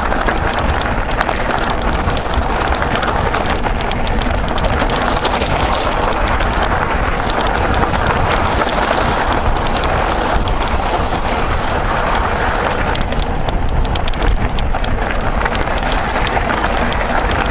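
Mountain bike rolling over a rough trail: steady tyre noise and rattling, with wind buffeting the microphone.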